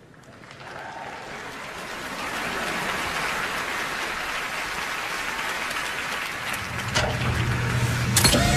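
Studio audience applauding and cheering, swelling over the first couple of seconds and then holding steady. Near the end a low electronic hum of backing music comes in, with a sharp hit just before the close.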